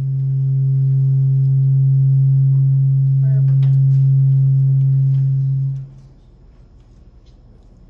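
Loud, steady low electronic hum in the microphone's audio chain, one unwavering tone with faint overtones, that cuts off about six seconds in, leaving faint room noise.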